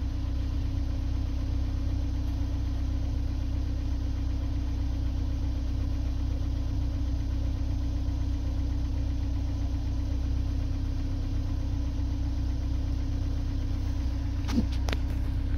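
Ford Fusion's 2.5L Duratec four-cylinder engine idling with a steady hum.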